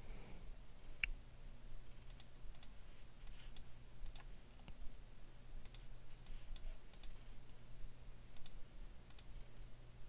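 Faint computer mouse clicks, about a dozen scattered sharp clicks with several in quick pairs, over a low steady hum.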